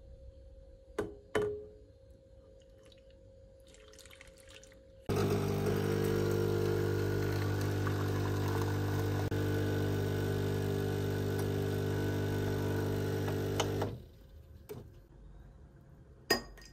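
A steady machine hum, like a small household appliance motor, switches on abruptly and runs evenly for about nine seconds before cutting off. There are a couple of sharp clicks before it and another near the end.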